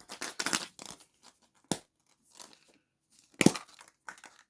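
Surprise-egg wrapper being crinkled and torn open, an irregular rustling broken by a few sharp clicks, the loudest about three and a half seconds in.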